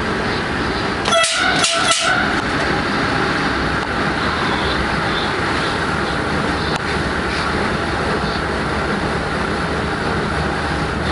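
Class 186 electric locomotive running at speed, a steady rumble of the train in motion on the rails. About a second in, a short pitched sound cuts in and out for roughly a second.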